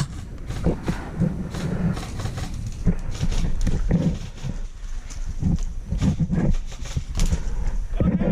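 Footsteps of a person moving quickly over the ground, heard as irregular thuds mixed with rustling.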